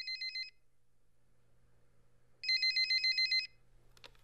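Telephone ringing with a fast electronic trill: one ring ends just after the start and a second, about a second long, comes about two and a half seconds in. It is an incoming call, answered just afterwards.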